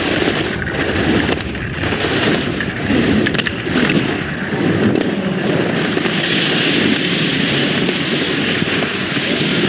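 Slalom race skis carving and scraping on hard, icy snow, with several sharp knocks in the first few seconds as gate poles are struck. The scraping settles into a steadier hiss in the second half.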